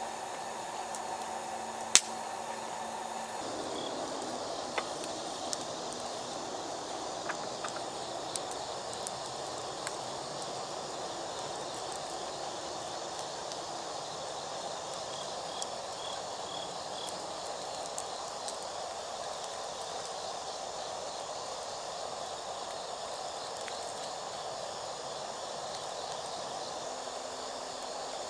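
Night insects chirping steadily, with scattered sharp pops and clicks from a wood fire burning in a fire bowl.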